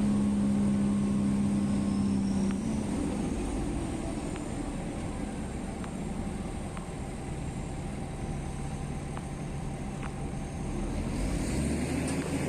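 Heavy diesel earthmoving machinery running steadily. A strong droning engine note falls away a few seconds in, leaving a lower, quieter running sound that grows louder again near the end.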